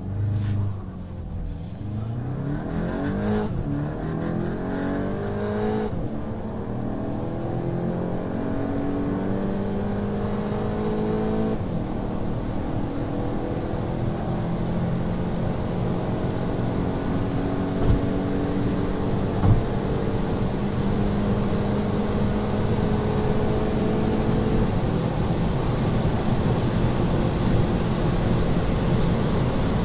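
VW Golf GTI Mk8's turbocharged 2.0-litre four-cylinder engine under full-throttle acceleration from a standstill, heard from inside the cabin: the revs climb in each gear and drop back at four upshifts, while wind and road noise grow as speed builds. Two short thumps come a little past the middle.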